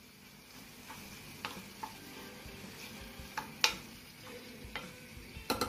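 Wooden spoon stirring raw shrimp into a tomato and pepper sauce cooking in a pan on a gas burner, with a faint sizzle and a few light taps of the spoon against the pan.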